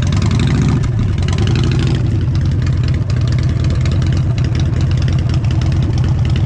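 Motorcycle engine idling steadily with a rapid, even low pulse.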